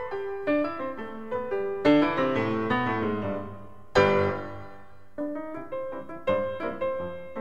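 Background piano music: a melody of struck notes with loud chord strikes about two and four seconds in that ring and fade away.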